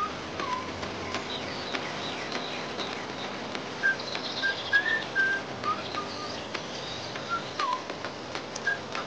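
Birds calling: short whistled chirps at irregular intervals, some sliding downward in pitch, over a steady background hiss, with scattered sharp clicks.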